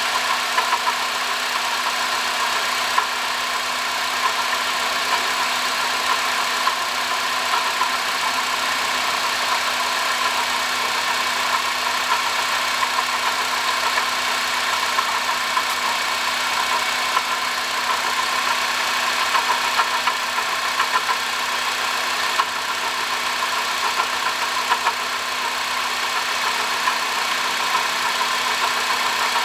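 2005 Honda Odyssey engine running steadily, carrying the abnormal noise of a failing water pump, which was cured by replacing the pump, thermostat, thermo switch and coolant.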